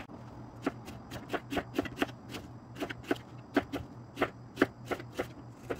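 Kitchen knife slicing a red onion thinly on a plastic cutting board: a steady run of crisp chops of the blade through the onion onto the board, about three or four a second.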